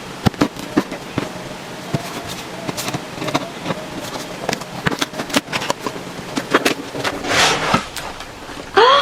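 Packaging being opened by hand: an irregular run of sharp crackles and clicks, with a longer tearing rip about seven seconds in.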